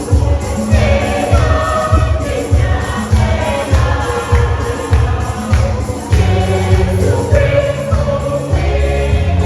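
Junior choir singing a gospel song over a steady low beat, about two beats a second.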